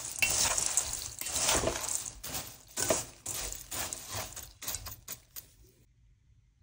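Metal spoon tossing a dry, crunchy mixture of fried sev, boondi, peanuts and cashews in a stainless steel bowl: repeated rustling and rattling strokes with the spoon scraping the metal, stopping about six seconds in.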